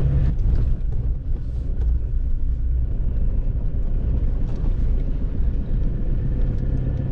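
A vehicle on the move: steady low engine and road rumble.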